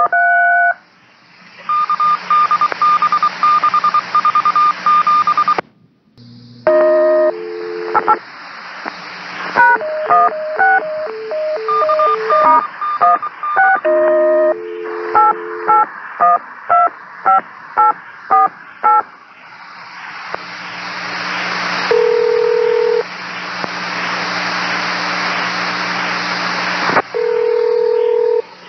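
Touch-tone (DTMF) dialing and beeping call tones sent over a railroad two-way radio channel, the sign of a radio-to-telephone patch being dialed. A pulsing beep comes first, then a long run of quick two-tone digit beeps, then steady radio hiss broken twice by a short steady tone.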